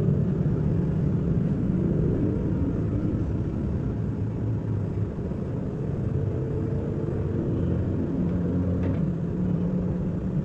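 Steady low mechanical rumble with faint humming tones that shift slightly in pitch, like a running motor.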